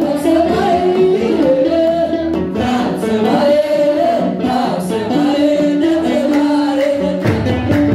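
Group of voices singing an Eritrean Orthodox Tewahdo praise hymn (mezmur) in unison, a stepping melody. Kebero drum strokes keep the beat, with heavier low drum beats near the end.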